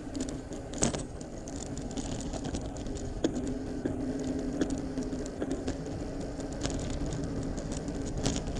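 Bicycle rolling along a dirt and gravel road: steady tyre noise with a low hum, and scattered clicks and rattles from the bike and handlebar mount over the bumps, with a sharper knock about a second in.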